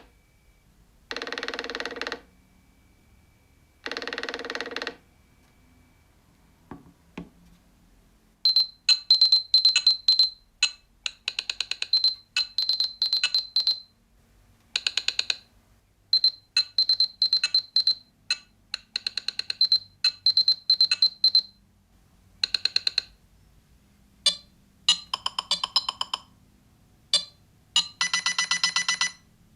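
Nothing Phone (1) ringtones playing from the phone's speaker, one after another. First comes a tone about a second long, repeated three times. After a short pause comes a fast run of short bright clicking notes in repeating phrases, and near the end a different pattern of quick clicks.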